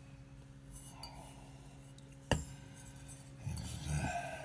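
Sterling silver tableware being handled: one sharp clink a little over two seconds in, then a short stretch of rubbing and handling noise near the end, over a faint steady hum.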